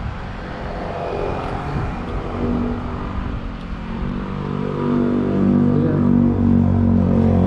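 Road traffic noise, with a motor vehicle's engine running steadily and growing louder about halfway through.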